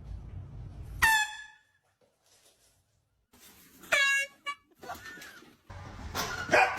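Two short horn blasts, about three seconds apart, the second lower in pitch than the first.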